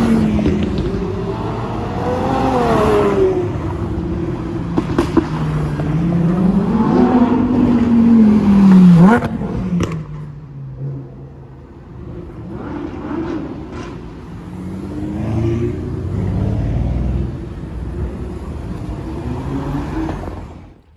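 Sports car engine being revved hard several times, its pitch rising and falling, then dropping away suddenly about nine seconds in. Quieter city traffic follows, with cars accelerating away through the junction near the end.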